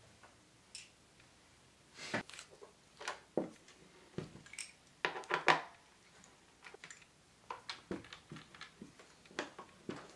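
Handling noise of hard plastic objects: scattered light clicks, taps and knocks, the loudest pair about five seconds in, as a small video projector is turned over and fitted onto a tripod.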